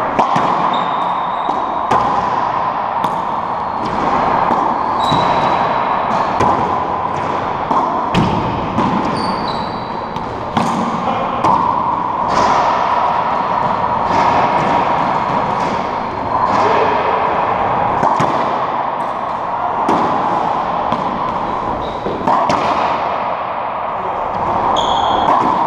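A racquetball rally: the hollow rubber ball cracks off racquets and the court walls again and again, each hit echoing in the enclosed court, over a steady background hiss.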